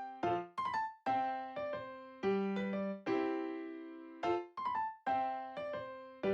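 Background music: a keyboard tune of single struck notes, each fading away.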